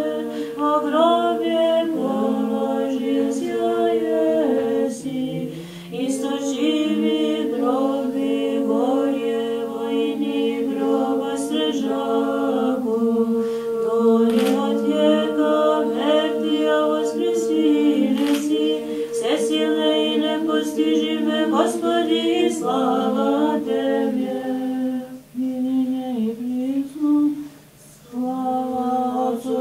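Small choir of nuns singing Orthodox church chant a cappella, several voices moving over one steadily held drone note, with brief breaks between phrases.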